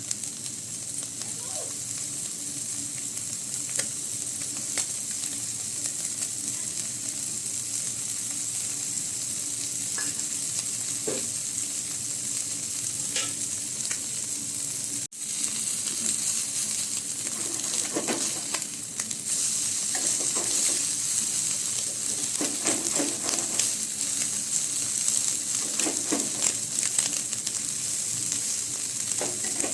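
Small fish frying in a little oil in a pan: a steady sizzle, with a spatula stirring and scraping against the pan now and then. The sizzle is louder and the stirring busier in the second half.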